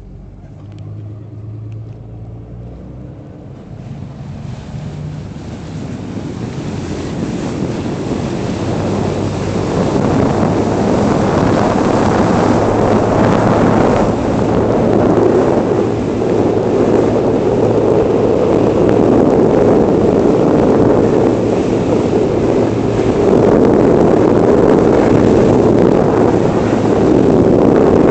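HDPE crew boat under way: its engine runs steadily while rushing water and wind noise on the microphone build up over the first ten seconds as the boat gathers speed, then stay loud and steady.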